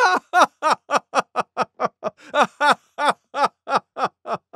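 One voice laughing a long, rapid run of "ha-ha-ha" syllables, about four a second, each one dropping in pitch, acted as the laugh of a cartoon hyena.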